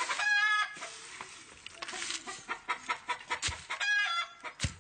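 A chicken clucking in two short calls, one at the start and one about four seconds in. Between and after them come a few sharp knocks of a pestle against a metal mortar as leaves are pounded.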